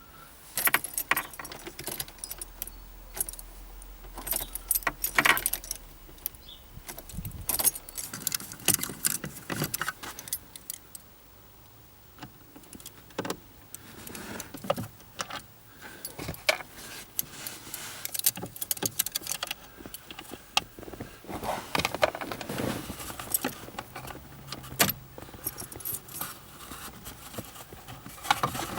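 A bunch of car keys jangling, with many scattered clicks and rattles of the keys being handled at the ignition.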